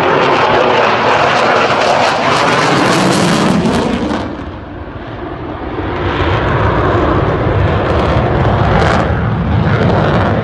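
Jet engine noise of an F-16 fighter flying overhead during an aerobatic display. The sound dips briefly about four seconds in, then swells again with a deep rumble.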